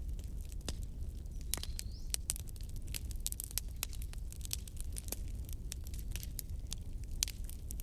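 Wood fire burning in a fireplace, crackling and popping with many sharp, irregular snaps over a low steady rumble of the flames. About two seconds in there is a brief thin rising whistle.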